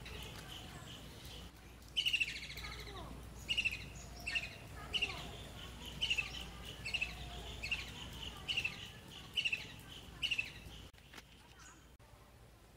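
A bird chirping repeatedly, short sharp calls coming roughly once a second. The calls stop abruptly near the end.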